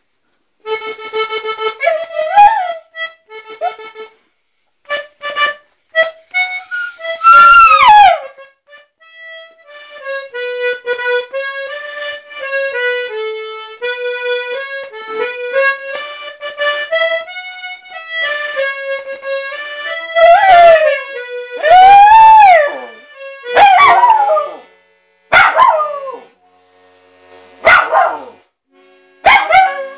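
A puppy howling along to a musical instrument playing held notes, with a slow stepwise run of notes in the middle. The puppy's rising-then-falling howls are the loudest sounds: one about a quarter of the way in, then several in close succession over the last third.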